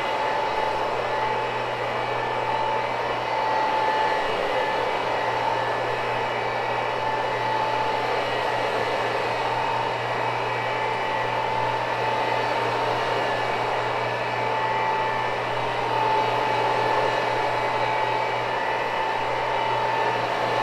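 Electric rotary floor machine running steadily as its cleaning pad scrubs a low-loop carpet: a constant motor hum with a high whine on top.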